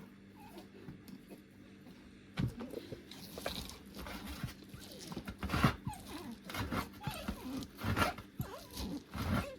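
Farm animals making a stream of irregular short crunching and rustling noises with brief calls among them, starting about two seconds in after a quieter stretch.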